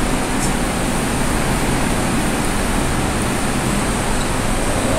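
Steady, even rushing noise with a low hum underneath and no distinct events.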